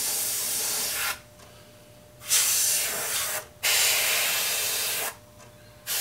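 Airbrush spraying paint in separate bursts of hiss, going quiet each time the trigger is let off. There are four bursts: one at the start, two with only a brief break between them in the middle, and one starting near the end.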